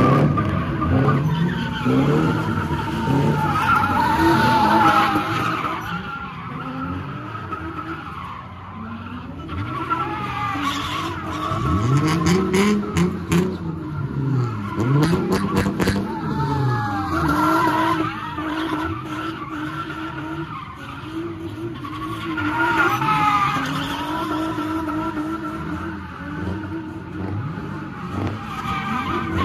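A car doing donuts, its tires squealing throughout. The engine revs rise and fall again and again, most often around the middle.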